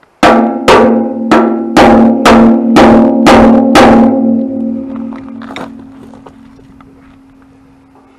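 Eight hammer blows on steel, about two a second, tapping a screw extractor (easy out) into a stuck sediment-bowl fitting in a tractor gas tank. A loud metallic ring follows the blows and fades slowly over several seconds.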